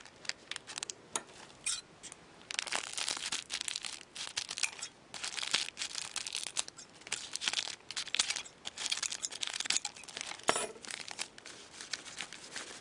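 A trading-card pack wrapper being torn open and crinkled by hand, in irregular bursts of crackling with a few sharp clicks.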